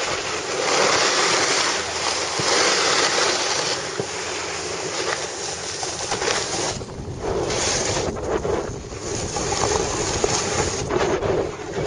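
Wind rushing over the microphone of a camera moving down a ski slope, mixed with the hiss and scrape of snowboard edges on packed snow, swelling and dipping in surges.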